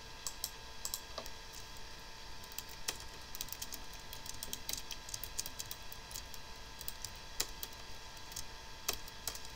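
Typing on a computer keyboard: an irregular run of key clicks with a few mouse clicks. Under it runs a steady whine from the computer itself, which the owner calls obnoxious.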